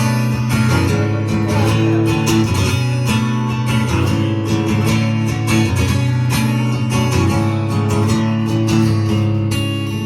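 Live acoustic guitar strumming chords, a song's instrumental intro before the singing begins.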